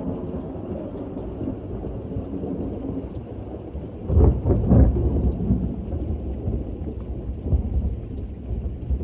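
Thunder rumbling over steady rain, swelling at the start and peaking in a louder, crackling burst about four seconds in before rolling on.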